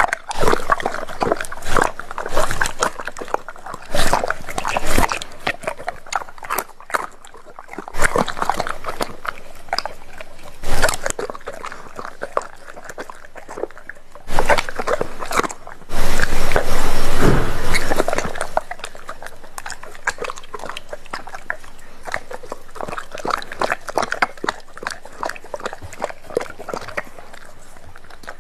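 Doberman pinscher eating raw meat off a plate: irregular wet chewing, smacking and licking, with a louder stretch of a few seconds about halfway through.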